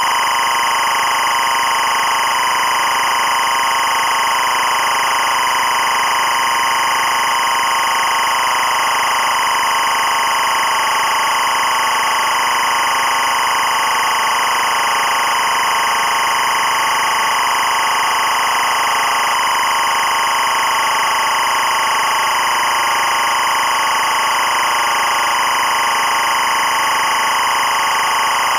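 EBU linear timecode (LTC) at 25 frames per second: an audio data signal carrying the running hour-minute-second-frame count, heard as a steady, loud, unbroken electronic tone.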